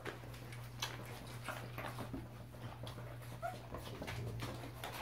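Five-week-old puppies nursing from their mother dog: soft scattered clicks and shuffling, with a brief high puppy whimper about three and a half seconds in. A steady low hum runs underneath.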